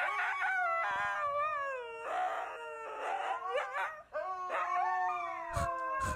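Husky howling: a run of long, wavering howls that slide down in pitch, with short breaks about two and four seconds in.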